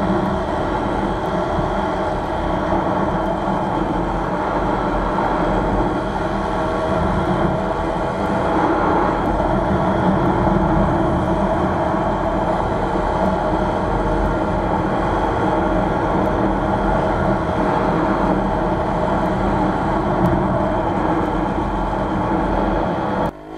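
WSK 125 motorcycle's two-stroke single-cylinder engine running steadily under way at road speed. The sound drops away abruptly near the end.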